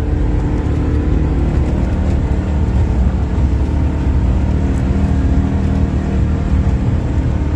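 ATV engine running steadily while the vehicle drives along, a constant drone with heavy low rumble.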